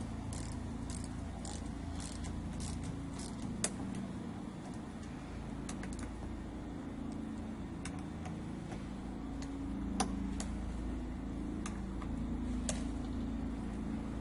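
Small metallic clicks of an 8mm wrench tightening the clamp bolts on a string-trimmer gearbox, several a second at first, then a few scattered ones, over a steady low background rumble.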